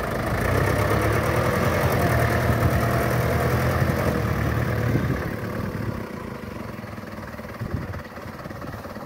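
Engine of an old, loaded light dump truck running as the truck moves along a dirt track. It is strong and steady for about five seconds, then drops to a lower, quieter run.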